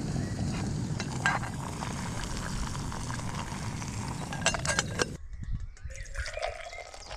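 Remote-canister gas stove burning steadily under a small metal pot of boiling water, with metal lid clinks about a second in and again near the middle. The burner sound cuts off suddenly after about five seconds, and hot water is poured into a metal mug.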